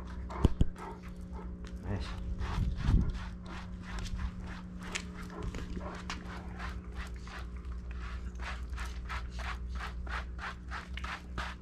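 Bernese Mountain Dog panting steadily, about four quick breaths a second, after a couple of sharp knocks near the start.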